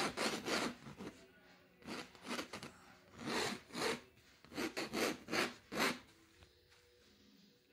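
A pencil sketching on a large linen canvas: about a dozen short strokes drawn against the canvas in quick bursts as the composition is laid out. They stop about six seconds in.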